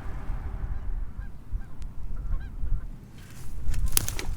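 Geese honking faintly a few times, short rising-and-falling calls, over a steady low rumble, with a sharp knock near the end.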